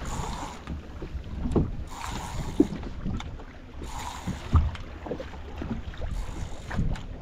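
A small fishing boat at sea: wind buffeting the microphone over a steady low rumble, with scattered knocks on the boat.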